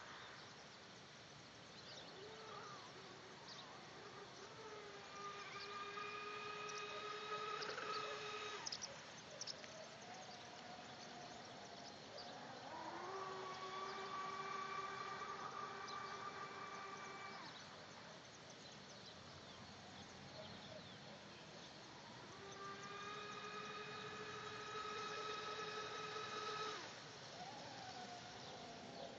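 Mini Cat 820EP radio-controlled catamaran's electric motor whining faintly as the boat speeds across the water, in three runs of several seconds each. Each run rises in pitch as the throttle opens, holds steady, then stops.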